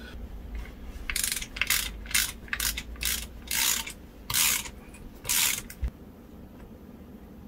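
Hand socket ratchet clicking through about eight short strokes as it turns a nut on a Ford Consul gearbox's selector lever housing, then a single knock.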